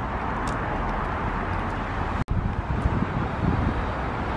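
Outdoor parking-lot noise: wind buffeting the microphone over distant traffic, cutting out abruptly for an instant a little past halfway.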